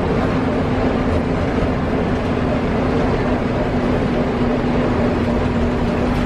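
Bus engine running and road noise heard from inside the passenger cabin as the bus drives along, a steady drone with a constant low engine tone.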